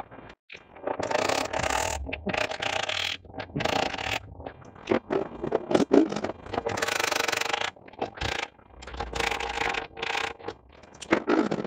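Hand tools and metal parts being handled: an irregular run of scraping, clattering and rattling, some bursts short and some about a second long, a few with a faint metallic ring.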